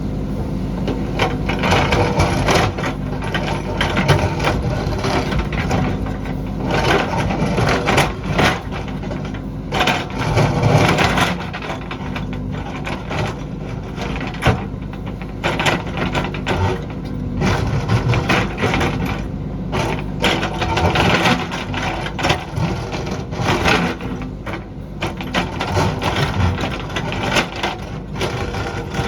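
JCB backhoe loader's diesel engine running under load, with repeated crunching and cracking of rock as the bucket digs and scrapes.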